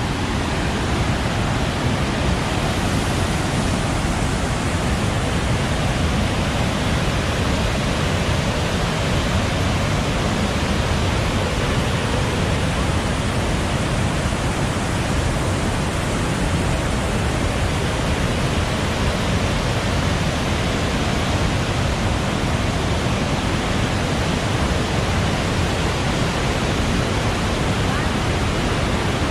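Steady, loud rush of a large waterfall, Athirappilly Falls, filling the sound with an even noise that doesn't let up.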